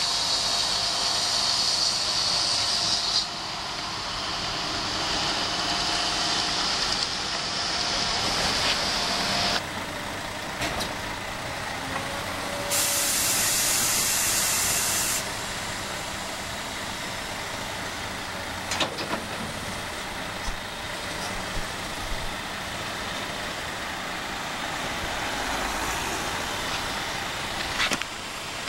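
Excavators working on a construction site: diesel engines running steadily with loud hissing in the first few seconds and again for a couple of seconds about midway, and a few short knocks later on.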